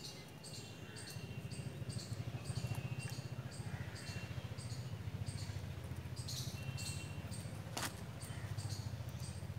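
Outdoor ambience of insects chirping in a steady pulse, about three chirps a second, over a low steady rumble, with one sharp click near the end.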